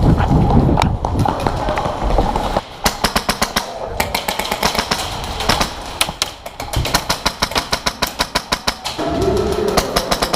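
Airsoft guns firing in rapid full-auto bursts: strings of sharp pops about ten a second, starting about three seconds in and coming in several bursts of one to two seconds.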